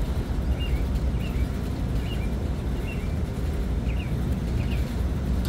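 A steady low rumble, with a small bird chirping short high notes every half second or so.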